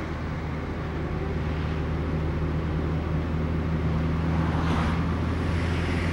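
Car driving along a road, with a steady low drone of engine and road noise.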